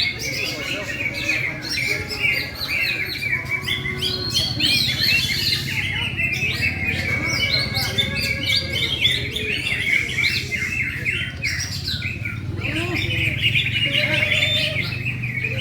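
Green leafbird (cucak ijo) singing hard, a dense, unbroken stream of rapid chirps and trills.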